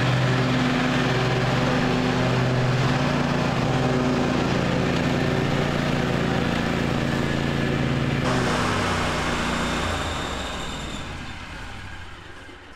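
Zero-turn riding mower engine running steadily while the mower cuts grass, its tone changing abruptly about eight seconds in, then fading away near the end.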